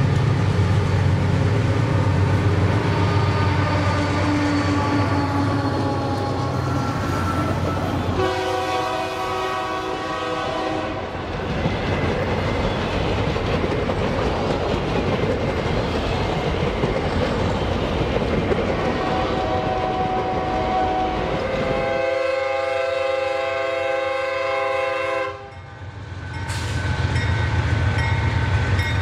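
Trains passing: a locomotive's engine runs with a steady low hum, and a multi-tone horn sounds about eight seconds in. Wagons then roll by on the rails, the horn sounds again for a few seconds about twenty-two seconds in, and it cuts off suddenly into another locomotive's engine running.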